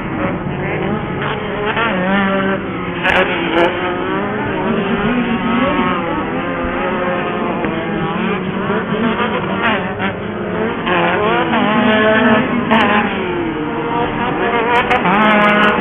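Several off-road race buggy engines revving up and down together, their pitches rising and falling over one another as they race around the track, with a few sharp knocks in between.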